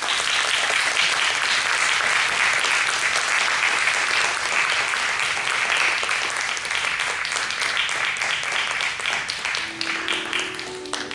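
Audience applauding, many hands clapping steadily, thinning out near the end as a few sustained music notes come in.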